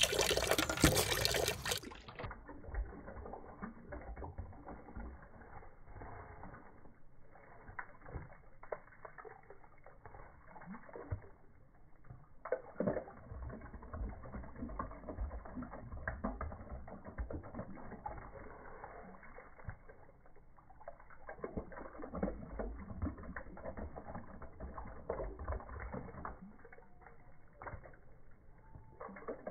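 Border terrier snapping and lapping at a stream of water from a hose, with splashing and dripping. After about two seconds the sound turns muffled and dull: a run of irregular wet clicks and sloshing.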